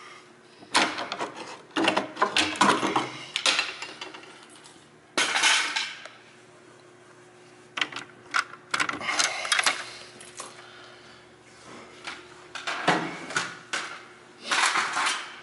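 Metal parts of a SawStop table saw being handled while its brake cartridge is changed: bursts of clanks and rattles, in four clusters, over a faint steady hum.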